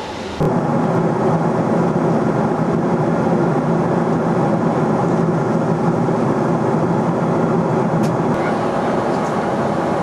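Steady cabin drone of a Boeing 777-200ER at cruise: GE90 turbofan and airflow noise heard inside the passenger cabin. It jumps louder about half a second in and then holds steady.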